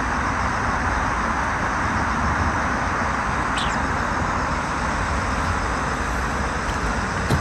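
Steady, even rushing background noise with no clear events.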